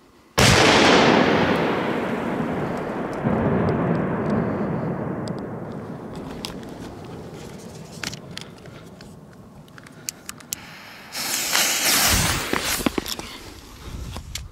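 Large firecracker exploding with one loud bang about half a second in, its rumbling echo rolling around the mountain valley and dying away over several seconds, with a second echo swell about three seconds in. Later come a few sharp clicks and a few seconds of hissing rush as the next fuse is lit with a jet torch lighter.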